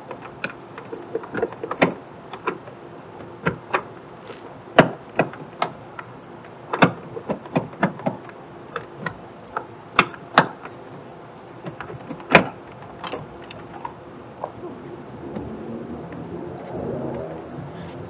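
Plastic tail light housing of a 2015 Infiniti Q50 clicking and knocking irregularly against the body as the tight lamp is wiggled and pried loose, its retaining tabs snapping and rattling. A low rumble builds near the end.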